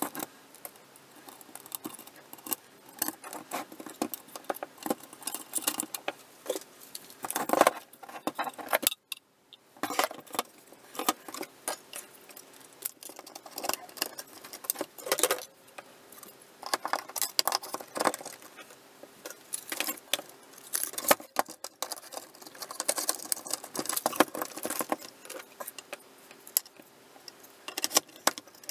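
Hands handling the plastic housing, ribbon cables, connectors and air tubing of a Critikon Dinamap patient monitor during reassembly, sped up: a dense run of quick clicks, rattles and scrapes, with a short break about nine seconds in.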